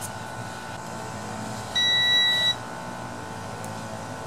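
Digital multimeter's continuity beeper: one steady high beep, a little under a second long, about two seconds in, as the probes touch a closed circuit on the mower's ignition wiring.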